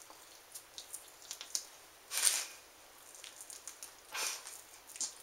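Small wet clicks and smacks from a mouth crammed with marshmallows. Two short breathy rushes of air come about two and four seconds in.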